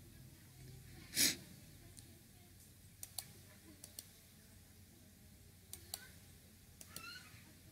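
Faint computer mouse clicks, several light single clicks spread over a few seconds, with one short, louder breath noise at the microphone about a second in.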